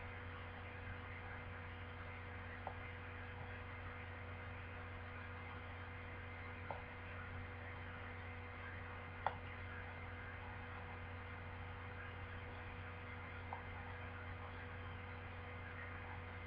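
Steady electrical hum and hiss of the recording, with no speech. A few faint short clicks come through, the loudest about nine seconds in.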